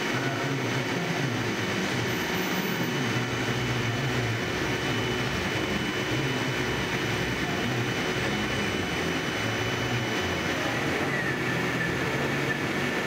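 Gildemeister CTX 500 CNC lathe turning a small metal part under coolant spray: a steady mechanical hum and hiss, with a thin high whine through the middle.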